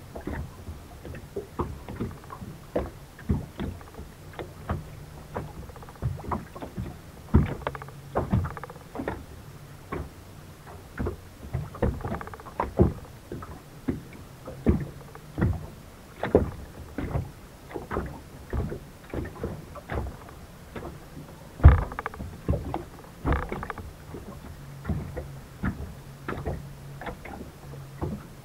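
Small waves slapping against the fibreglass hull of a Skeeter bass boat, irregular knocks and splashes a few times a second, with a low hum that comes and goes.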